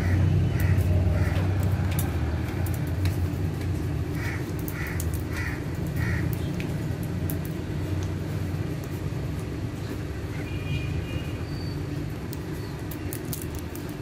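Alexandrine parakeets calling: a run of four short harsh calls about half a second apart, then a few higher, thinner calls near the end. A steady low hum runs underneath throughout.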